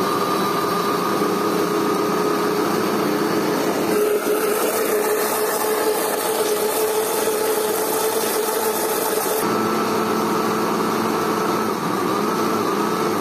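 Countertop electric blender running steadily, mixing a thin batter of milk, eggs, oil, butter and yeast. Its note shifts slightly about nine seconds in, and it switches off at the very end.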